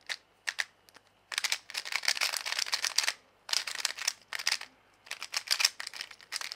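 Plastic 3x3 speedcube being turned fast by hand: runs of quick clicking, clacking layer turns, broken by brief pauses about 3 and 5 seconds in. The cube has just been lubed and is being broken in.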